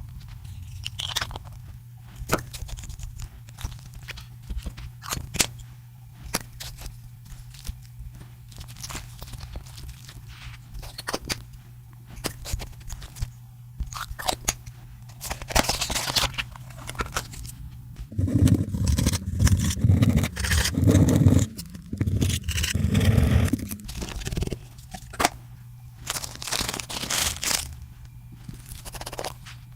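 Hands working sticky slime, with a run of small crackles, clicks and pops as it is pressed and pulled. About two-thirds of the way through comes a louder stretch of deep squelching as the slime is kneaded and folded, with lipstick being mixed in.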